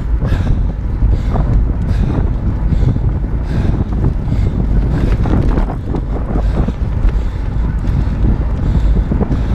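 Loud, steady wind buffeting on the microphone of a fast-moving camera, a low rushing rumble with irregular flutter.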